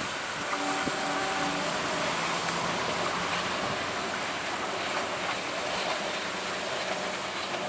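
Passenger train coaches running on the rails as the train moves away around a curve: a steady rumble and rattle of wheels on track.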